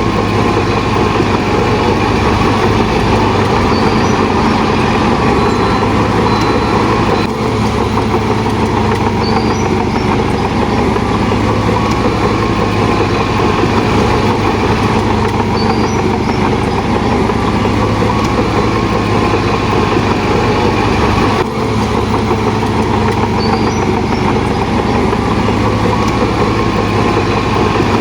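Heavy diesel earthmoving machinery running steadily and loudly, with two brief dips in the sound.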